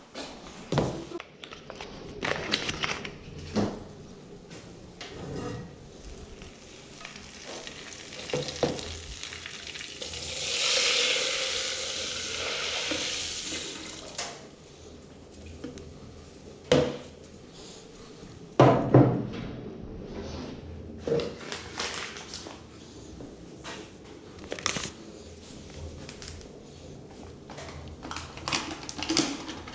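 Scattered knocks and clatters of goods and packaging being handled, with a rustle lasting about four seconds starting around ten seconds in, and two sharp thumps a couple of seconds apart later on.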